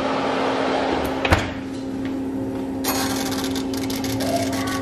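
Oven door shut with a single sharp knock about a second in, over the steady hum of the fan oven running on convection. From about three seconds in, rapid fine clicking as the oven's mechanical timer knob is turned.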